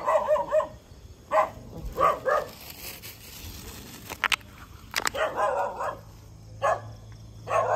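A dog barking in short bursts, about seven times, some of them higher yips.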